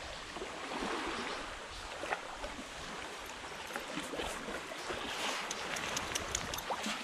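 Small lake waves lapping and splashing at the water's edge: a steady wash with light splashy ticks that grow busier near the end.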